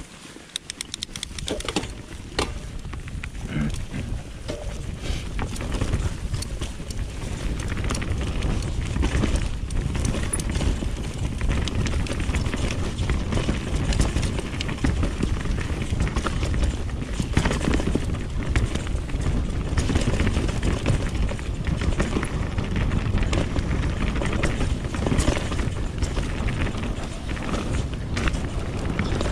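Mountain bike ridden fast down a dirt trail: deep wind rumble on the microphone with tyre noise and irregular clicks and rattles from the bike over bumps, growing louder over the first several seconds as the bike picks up speed.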